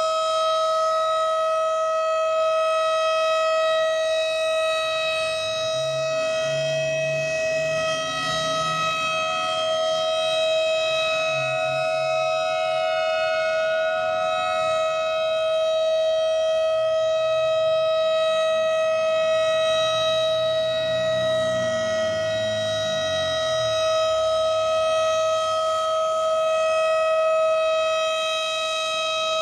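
Federal Signal STH-10 outdoor warning siren sounding a steady alert tone during its monthly test, holding one pitch with no rise or fall. A lower hum comes and goes under it through the middle.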